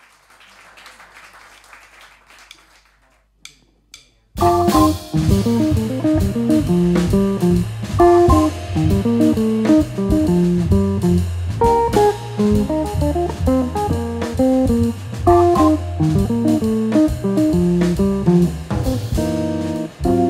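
A jazz organ trio playing live: electric guitar, organ with its bass line, and drum kit. The band comes in suddenly about four seconds in, after a few seconds of faint background noise.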